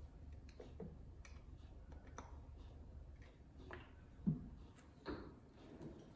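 Scattered light clicks and ticks from a small metal lathe being handled before a threading cut, with one sharper click about four seconds in, over a low steady hum.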